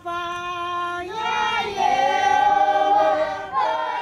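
A choir singing long held notes: one steady note for about the first second, then fuller voices in harmony that swell louder and waver before breaking off near the end.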